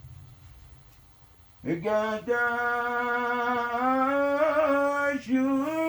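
Solo male voice singing a Yemeni madrahah pilgrims' song: after a brief quiet lull, a long drawn-out sung note begins a little under two seconds in, wavers near the end, and breaks into a new phrase.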